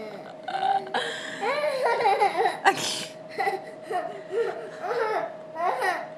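A little girl laughing and making silly babbling noises in a string of short, high vocal bursts, with a faint steady tone underneath.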